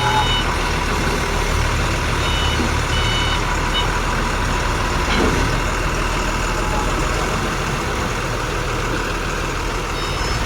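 Heavy loading vehicle's engine running steadily, with a reversing alarm beeping in short pulses during the first few seconds.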